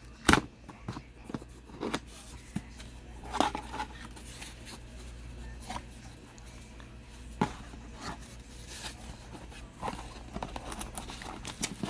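A camcorder's cardboard box and packaging being opened and handled by hand: scattered scrapes, taps and rustles, with a sharp click about a third of a second in.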